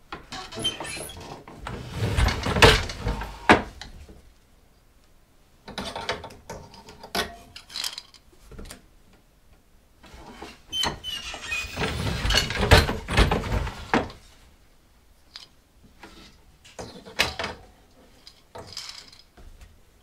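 Wooden handloom weaving twill: wooden knocks, clacks and rubbing as the shuttle is passed through the warp and the beater is pulled against the cloth. The sound comes in four bursts with short quiet gaps between them, loudest about two to three seconds in and again about twelve seconds in.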